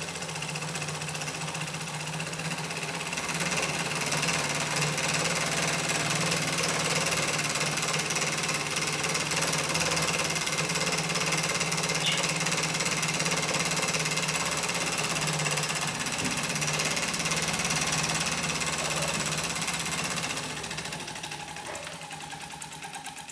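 Cyldon 13-2 toy steam engine running with a steady mechanical clatter as it drives a stepper-motor generator. It grows louder about three seconds in and dies away over the last few seconds. It is a poor run, which the owner puts down to the timing being out a bit.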